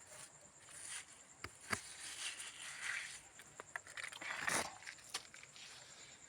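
Hand masonry work: scraping of cement mortar and bricks or stones, broken by a few sharp knocks of pieces being set down, with a louder scrape and knock about four and a half seconds in.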